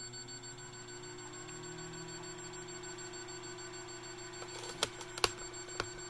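Jenn-Air microwave oven running with its cabinet open: a steady hum, with a few short clicks near the end. It hums as if running but does not heat, which the owner takes for a magnetron that isn't coming on.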